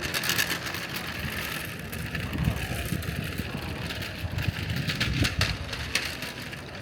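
Outdoor city-street ambience: traffic rumble from a passing vehicle, mixed with scattered clicks and knocks from the street.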